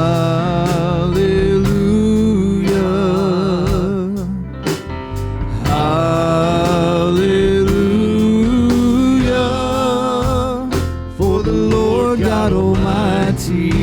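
Live worship band music: guitar and drums, with long held melody notes that waver.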